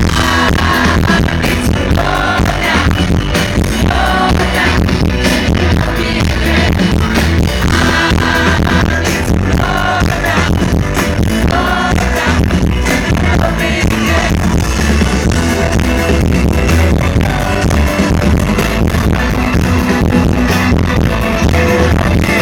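Live pop band playing loudly through a concert sound system: a male singer's vocals over heavy bass and a steady drum beat.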